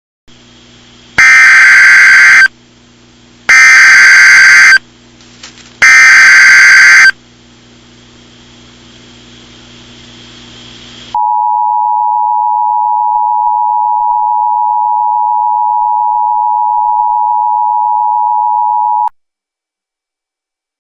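Emergency Alert System broadcast opening: three loud bursts of SAME header data tones, about a second each, over a low hum and hiss. After a pause comes the two-tone EAS attention signal, held steady for about eight seconds and cutting off abruptly.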